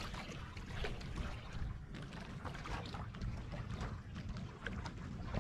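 Wind rumbling on the microphone, with water splashing and sloshing in irregular small bursts around a kayak being paddled.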